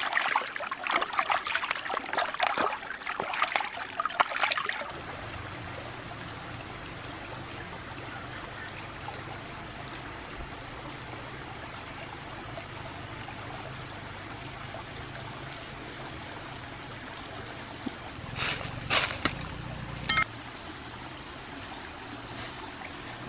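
Hands splashing stream water over a slab of raw pork as it is washed, for about the first five seconds. After that the stream trickles steadily under a thin, unchanging high whine, with a few brief rustles near the end.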